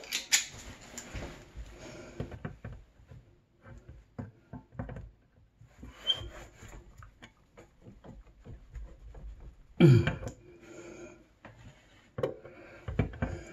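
Pliers and metal faucet parts clicking and scraping as a sink faucet's valve stem is worked loose and pulled out, with a louder bump about ten seconds in.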